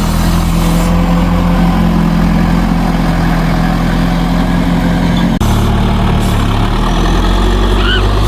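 Vehicle engine idling steadily, with a brief break about five seconds in.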